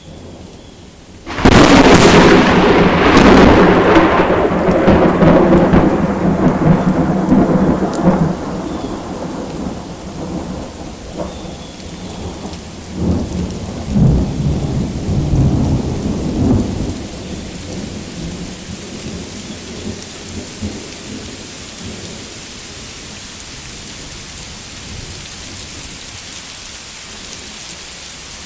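Very loud, close thunder clap in a rainstorm: a sudden sharp crack about a second in and a second crack soon after, then a long rolling rumble that fades, with a few more rumbles in the middle. Steady rain hisses throughout.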